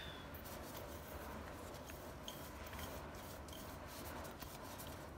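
Faint scraping and light ticking as chopped garlic is tipped and scraped out of a small stainless steel bowl onto raw chicken in a plastic mixing bowl.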